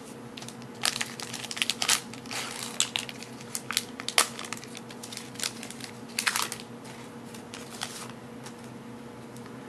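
Crinkling and crackling of trading-card packaging being handled: a dense run of sharp crackles for the first six seconds or so, thinning out after.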